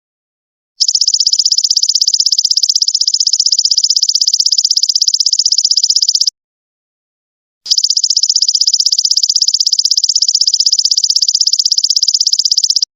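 Golden locust (belalang emas) stridulating: a fast-pulsed, high-pitched buzzing trill. It comes in two long phrases of about five seconds each, starting about a second in, with a short pause between them.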